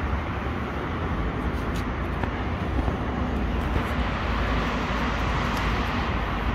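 Steady rumble of nearby street traffic, an even low noise with no distinct passing vehicle.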